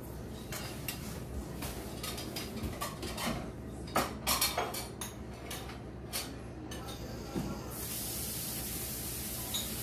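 Light clicks and taps of a plastic food container and pulled-pork pieces being handled over a nonstick frying pan, the loudest cluster about four seconds in. Near the end a steady hiss sets in.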